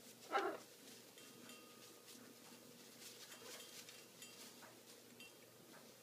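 Blue-and-gold macaw flapping her wings, a faint feathery rustling in a series of quick strokes, with one brief louder sound about half a second in.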